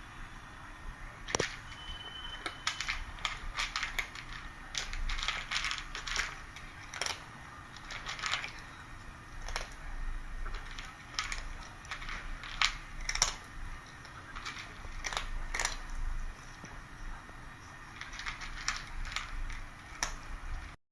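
Close-up mouth sounds of a pet licking and eating: irregular wet clicks and crunches coming in short runs.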